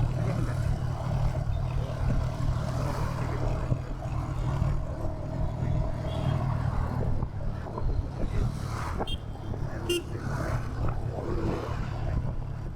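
Royal Enfield Hunter 350's single-cylinder engine thumping steadily on the move in city traffic, with street noise around it. A short horn toot sounds about ten seconds in.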